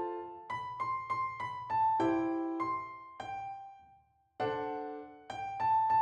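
Background piano music: a gentle melody of single struck notes that ring and fade, with a short pause about four seconds in.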